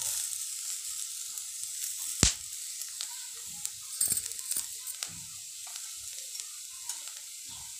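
Potato sticks and peanuts sizzling in ghee in a kadhai, with a spatula stirring and knocking against the pan; one sharp knock about two seconds in is the loudest sound, and a few lighter knocks follow.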